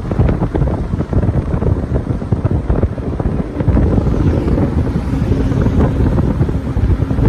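Wind rushing and buffeting against the microphone at the open window of a moving car, gusting unevenly and loudest in the low end.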